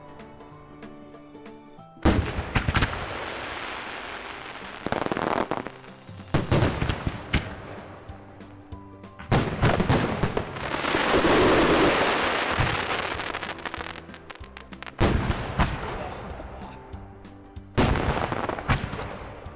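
Diwali fireworks going off: a run of sudden loud bangs, each trailing off into crackling, with a longer hissing burst in the middle.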